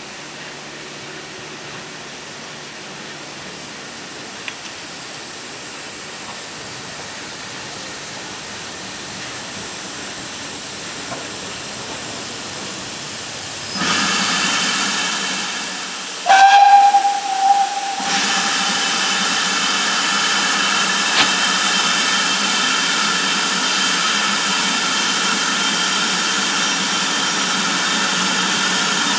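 Steam locomotive letting off steam: a hiss that grows slowly, then suddenly gets much louder about 14 seconds in. About two seconds later comes one short blast of its steam whistle, lasting about a second and a half, and a loud steady hiss of steam follows it.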